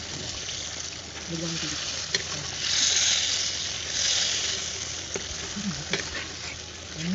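Rohu fish pieces frying in oil and masala in a clay pot: a steady sizzle that swells twice, about three and four seconds in. A perforated metal spatula stirs through the pan, scraping and giving a few light clicks against the pot.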